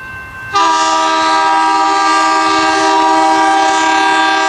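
Train air horn sounding one long chord of several notes, starting suddenly about half a second in and held for about four seconds.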